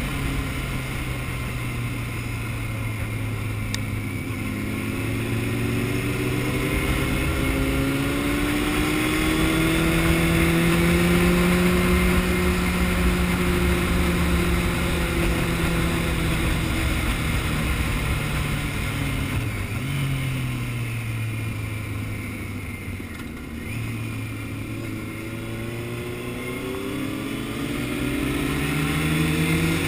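Honda CBR600F inline-four engine running under way. Its pitch climbs slowly over the first ten seconds or so, eases back, drops low about two-thirds through as the bike slows, then climbs again near the end. A steady rush of wind and road noise lies beneath it.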